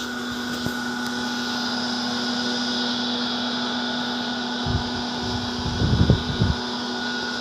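Electric water-pump motor humming steadily as it pumps irrigation water to the wheat field, with a low rumble and a few irregular thumps in the second half.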